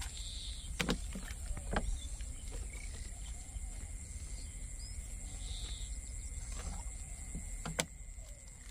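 Low rumble of wind on the microphone with a faint steady high tone, and a few sharp clicks and taps as bait and a plastic water bottle are handled, the clearest about a second in and near the end.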